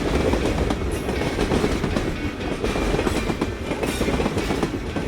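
Train rolling along the track: a steady low rumble with a continuous rattle of wheels and cars.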